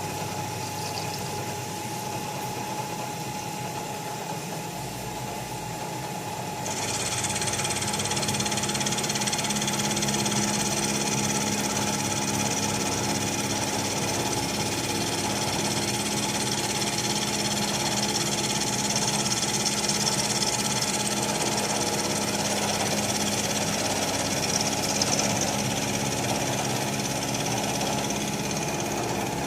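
Bridgeport Series 2 Interact 4 milling machine running with a steady machine hum and whine. A high, steady hiss comes in abruptly about seven seconds in and keeps on.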